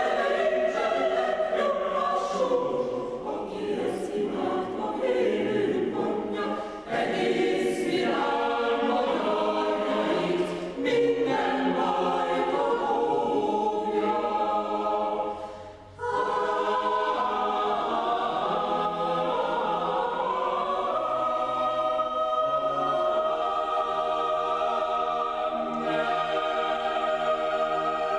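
Mixed chamber choir singing a cappella, women's and men's voices in full chords. There is a brief break just past halfway, then long held chords in the last third.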